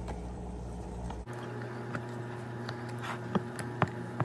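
Utensil stirring a thick pudding mixture in a glass bowl, with soft scraping and scattered sharp clicks against the glass, three louder ones near the end. A steady low hum cuts off abruptly about a second in.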